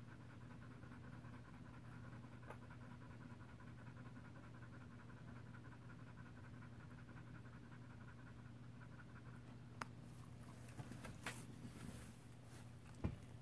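Standard poodle bitch panting rapidly in labour while whelping her puppies, faint, over a steady low hum. A few sharp clicks near the end.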